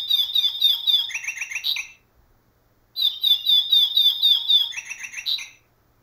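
Recorded nightingale song played twice through the small built-in speaker of a Wild Republic plush bird, the same short phrase each time. Each phrase is a quick run of high, repeated down-slurred notes ending in a few lower notes. The first ends about two seconds in, and the second starts about a second later.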